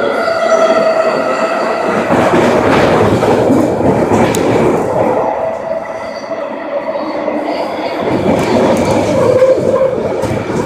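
SkyTrain car running at speed, heard from inside the car: steady rumble and wheel noise on the rails, with a whine from the linear induction motors, strongest in the first half.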